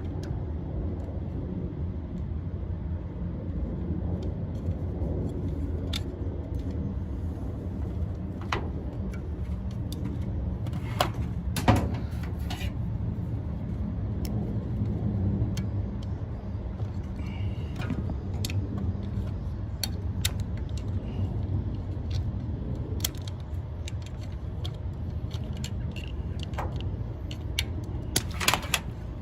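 Scattered metallic clicks, clinks and knocks of tools and hardware as a condenser fan motor is unbolted and taken out of a commercial condensing unit, over a steady low rumble. One louder knock comes near the middle and a quick run of clicks near the end.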